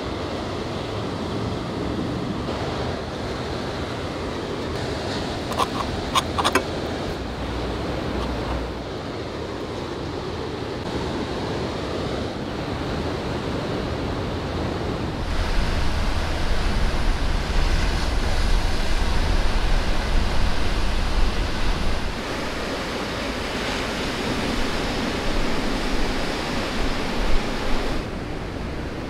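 Steady wash of sea waves on the shore with wind, the wind buffeting the microphone as a low rumble for several seconds in the middle. A few light clicks come about six seconds in.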